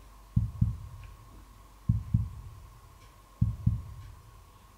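Heartbeat sound effect: slow paired low thumps, lub-dub, three beats about a second and a half apart, over a faint steady high hum.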